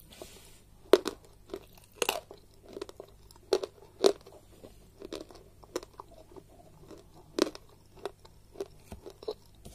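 Close-up chewing of a piece of chalk spread with Turkestan clay paste: irregular dry crunches as the chalk breaks between the teeth, with the sharpest about a second in, at two, at four and at seven and a half seconds.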